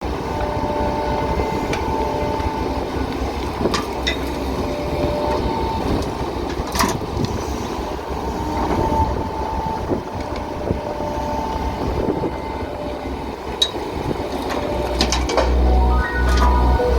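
Volvo EC200D hydraulic excavator running and working: a steady engine note with an on-and-off whine and occasional sharp clanks, the rumble growing heavier near the end.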